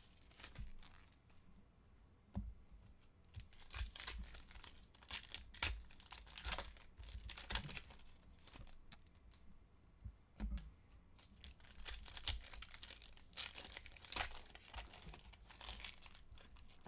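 Foil trading-card packs being torn open and crinkled by hand, a run of irregular short crackling rips, with the cards inside shuffled near the end.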